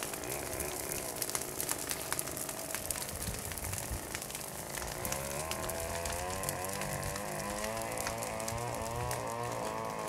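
Brush fire crackling in dry leaves and undergrowth, with many small snaps and pops. Under it a motor runs steadily, its pitch wavering up and down from about halfway through.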